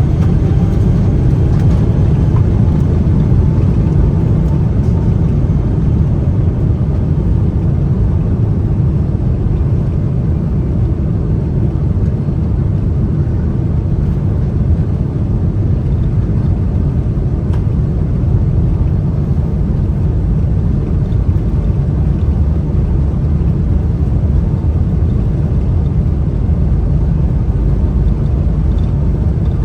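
Steady low rumble inside the cabin of a Boeing 777-300ER, from its GE90 jet engines and the airflow, with a faint whine rising in pitch over the first couple of seconds.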